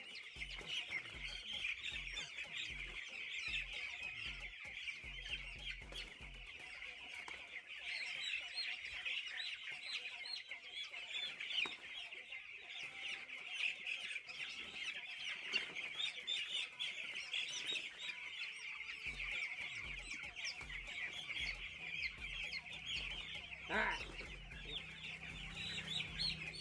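A flock of young chicks peeping continuously, many high chirps overlapping into a dense chorus. A single knock sounds about 24 seconds in.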